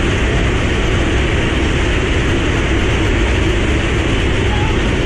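Steady loud drone of a military transport aircraft's engines mixed with the rush of air through its open rear cargo ramp, heard from inside the hold.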